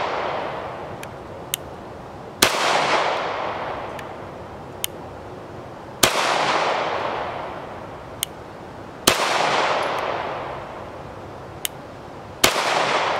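Ruger P85 9mm pistol fired four times in slow single shots about three seconds apart. Each shot is followed by a long fading echo, and faint sharp ticks are heard between the shots.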